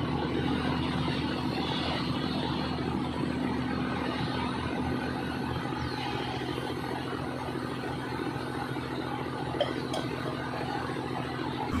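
Diesel engine of a railway track-maintenance train running steadily as the train of track machines rolls slowly past. One short knock about nine and a half seconds in.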